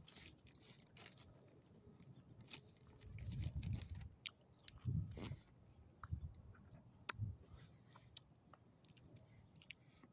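Small dog chewing and licking up small pieces of chicken, a string of quick sharp mouth clicks, with a few short low rumbles between them.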